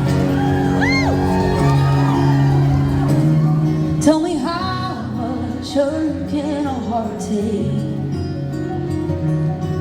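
Live band playing a song's slow opening: sustained chords ring on, and from about four seconds in a wordless singing line winds over them.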